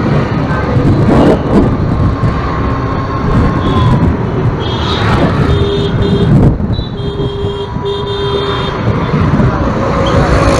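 Wind and road noise from a moving vehicle in busy street traffic. Several short horn beeps sound about halfway through.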